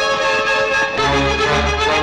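Instrumental film-score music: held pitched notes over low bass notes that come in about a second in.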